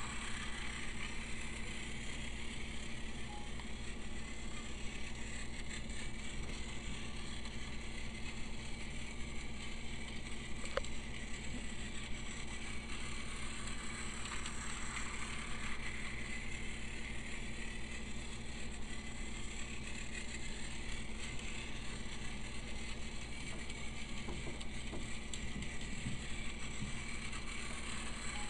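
Battery-powered Tomy Plarail Percy toy train running laps with its cars, its small motor whirring steadily and its plastic wheels rattling on the plastic track.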